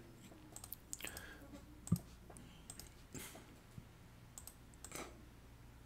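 Faint, scattered clicks of a computer mouse, with one sharper click about two seconds in, over a steady low electrical hum.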